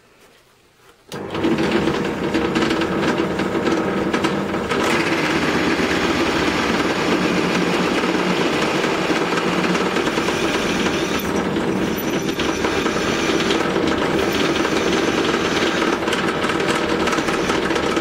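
Drill press starting up about a second in and running steadily as its twist bit drills into the metal centre of a Citroën DS rear engine mount. The cutting noise gets more hissy and scraping about five seconds in.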